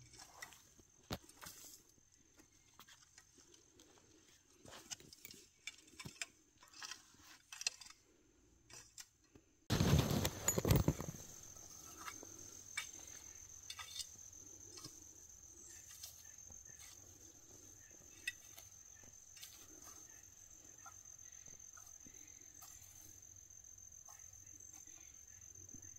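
Garden rake scraping and dragging through sandy soil in irregular strokes, with gritty clicks of small rocks against the tines. About ten seconds in there is a loud rumbling knock; after it a steady high insect trill runs underneath the raking.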